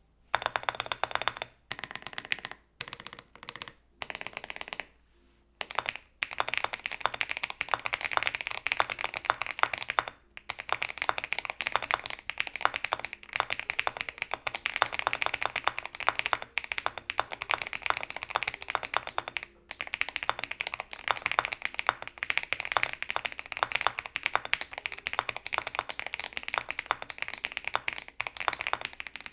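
Typing on an Adam kit custom mechanical keyboard in a LEGO-built case, fitted with lubed Akko Lavender Tactile switches and GMK keycaps, with tape mod and PE foam: a dense run of key clacks. The first few seconds come in short bursts with gaps, then the typing runs fast and near-continuous, with brief pauses about ten and twenty seconds in.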